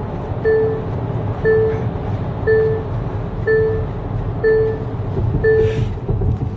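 A car's warning chime beeping about once a second, each beep short and at one pitch, over the steady rumble of the car's cabin.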